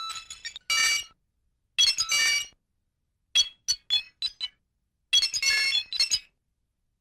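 Synthesized science-fiction sound effect: clusters of bright, high chiming electronic tones separated by silence, including a run of five quick blips about halfway through.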